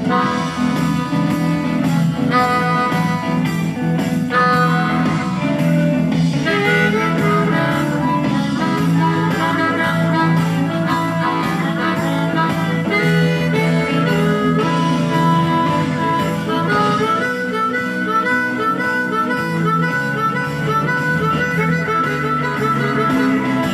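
Harmonica, cupped in both hands, playing a blues solo over a backing track with guitar and low sustained bass notes.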